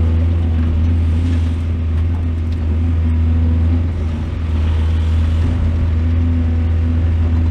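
Heavy diesel engine of earthmoving machinery running steadily, with a brief drop in level about four seconds in.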